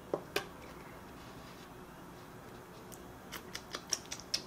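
Soft clicks and crackles from a small cardboard drink carton and its plastic straw being handled and sucked on: two clicks just after the start, then a quicker run of small clicks in the last second and a half.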